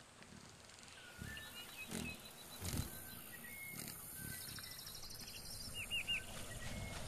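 A faint, sound-designed wildlife ambience: short high chirps and rapid trills like birdcalls over a few low rumbles and thuds, slowly growing louder.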